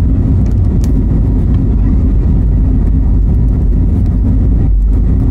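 Cabin noise inside an easyJet Airbus A320-family jet taxiing on the ground: a steady, loud low rumble of engines and wheels, with faint clicks now and then.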